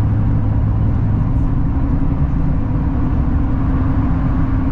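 Steady road and engine noise heard inside a moving car's cabin: a constant low rumble and hum with no changes.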